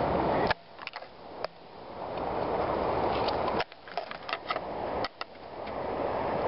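Rough rustling and handling noise from a landing net being worked through dry twigs and brush, with scattered sharp clicks and snaps. The rustle swells gradually and cuts off suddenly twice.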